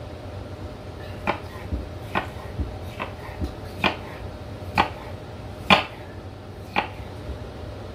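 Kitchen knife cutting a red bell pepper on a wooden cutting board: about ten irregular knocks of the blade meeting the board, the loudest nearly six seconds in. A low steady hum runs underneath.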